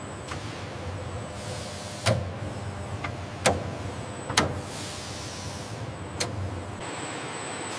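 Steady mechanical whirring of factory machinery, broken by four sharp knocks, turning into an even hiss near the end.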